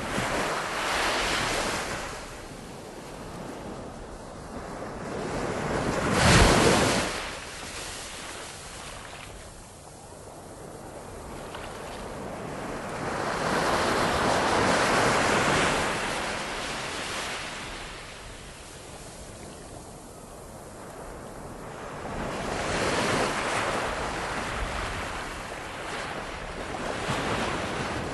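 Ocean surf: waves washing in and breaking in slow swells every few seconds, the loudest about six seconds in.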